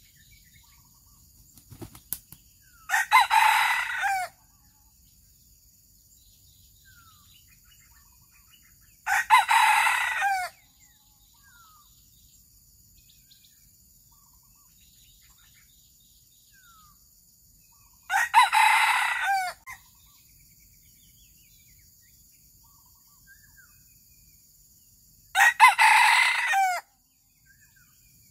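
Red junglefowl rooster crowing four times, each crow short, about seven to nine seconds apart, over a steady high insect drone.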